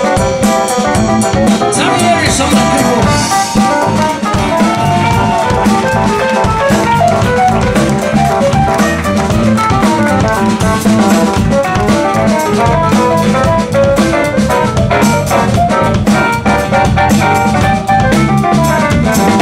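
Live rock band playing an instrumental section: an electric guitar plays lead lines with held and bent notes over a steady drum kit beat and bass.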